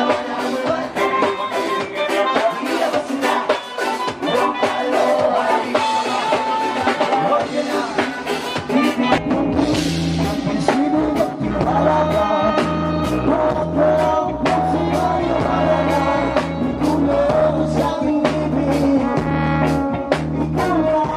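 Live band playing an upbeat ska-like song with saxophone and singing over keyboard and drums; a steady bass line comes in about nine seconds in.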